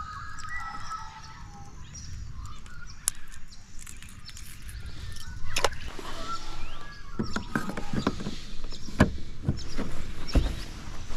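Small birds chirping in the first couple of seconds over a steady low rumble. From about halfway there is a run of sharp knocks and clicks, typical of gear handled on a kayak, the loudest near the end.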